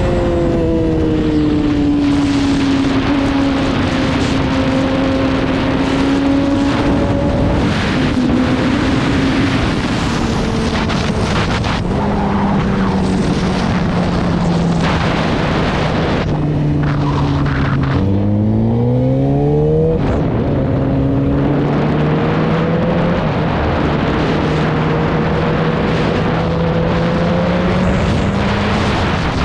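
Yamaha YZF-R6 inline-four sport bike engine running hard on an aftermarket slip-on exhaust with a steady rush of noise under it. The engine note holds and sags slowly, then about eighteen seconds in it revs up sharply through a gear and drops back at the shift.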